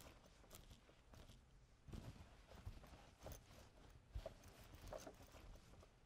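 Faint footsteps walking on a dirt forest path, soft irregular steps about once a second.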